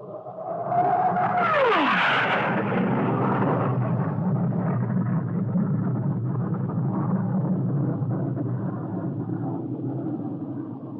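Cartoon sound effect: a tone that rises, then drops steeply in pitch, giving way to a long, rumbling, engine-like noise that fades out at the end.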